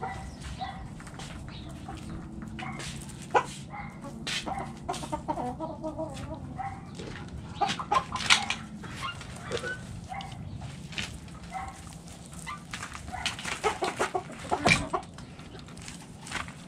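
Backyard hens clucking in short calls while they feed, with many sharp taps and knocks scattered through, the loudest near the end. A low steady hum runs underneath.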